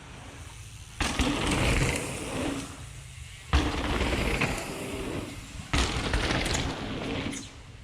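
Wind buffeting the microphone and rough trail noise from a downhill mountain bike, cutting in loud and sudden three times, about a second, three and a half and six seconds in.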